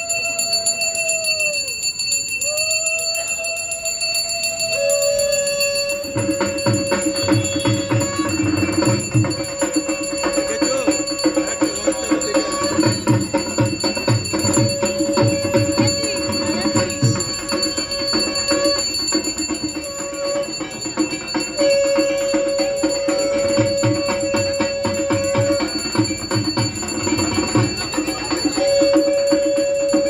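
Aarti bell ringing steadily, joined about six seconds in by fast rhythmic drum beats. A long held tone sounds again and again in blasts of a few seconds; the first two rise and fall in pitch.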